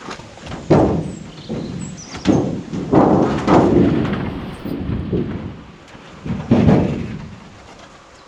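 Irregular heavy thumps and knocks of wooden boards being handled and set down, about half a dozen over the stretch, the loudest near the start and again toward the end.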